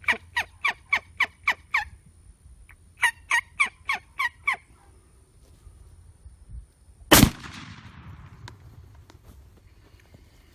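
Two runs of turkey yelps, about seven then six short notes at three to four a second, followed about seven seconds in by a single loud 12-gauge shotgun blast that echoes away.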